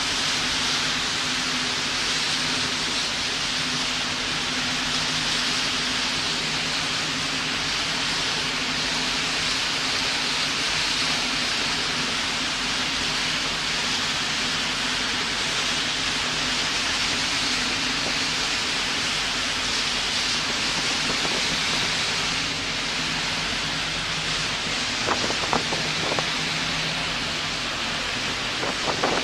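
Steady rushing of water and spray from a high-speed catamaran ferry's wake as it runs at speed, over a low, steady engine hum. A few short knocks near the end.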